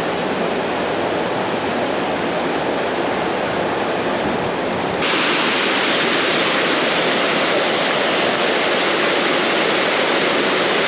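Creek water rushing over a waterfall, a steady hiss. About five seconds in it abruptly turns brighter and a little louder.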